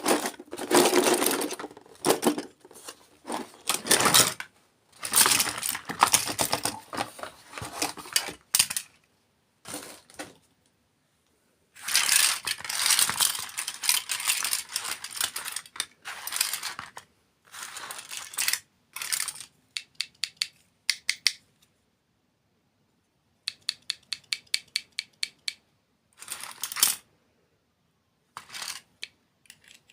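Close-miked ASMR eating of sweets and candy: bursts of crunching and crackling, broken by pauses, with a few runs of quick rattling clicks, about seven a second, past the middle.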